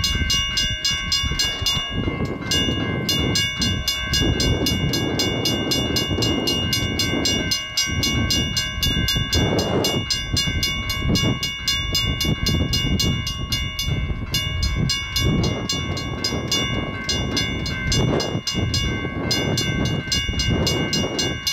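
Diesel rumble of an approaching EMD GP40-2 locomotive, its turbocharged V16 two-stroke engine working as it leads a freight train, swelling and easing irregularly. Several steady high-pitched tones sound continuously over it.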